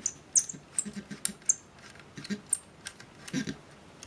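Screwdriver working the screw of a small metal clamp being undone: irregular light metallic clicks and taps, some with a brief high ring.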